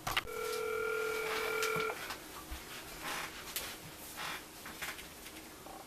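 Telephone ringback tone through a smartphone's speakerphone while a call rings out: one steady ring of about a second and a half starting just after the beginning, followed by faint handling clicks.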